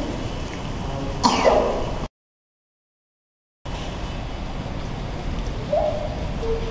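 Steady noise of a rainstorm over a flooded street. The sound cuts out completely for about a second and a half near the middle. About a second in there is a short, sharp sound that falls in pitch.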